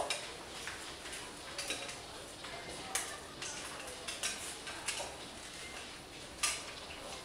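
Irregular sharp clicks and knocks, about ten of them, like small hard objects tapping or clinking, over a low room murmur; the loudest comes about six and a half seconds in.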